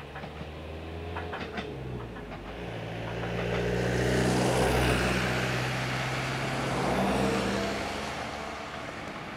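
A truck passes close by on the road, its engine and tyre noise swelling to a peak about four to five seconds in, with a second, smaller swell around seven seconds before it fades. In the first two seconds, a few faint wheel clicks come from the Ichibata 7000 series railcar as it pulls away down the track.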